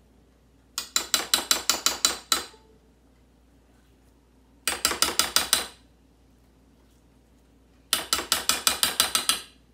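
Metal spoon tapped rapidly against a ceramic plate to knock off scooped sweet potato. It comes in three bursts of quick, even clicks, about eight a second, each lasting a second or so.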